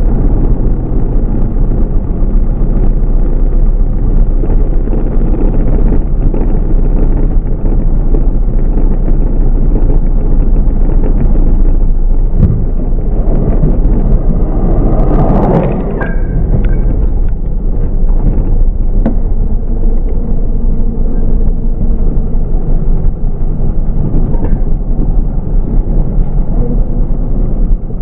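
Deep, slowed-down rumble of a BMW R100R's air-cooled boxer twin engine and wind noise, from a slow-motion replay. About halfway through, a sudden loud burst of noise comes from the crash ahead.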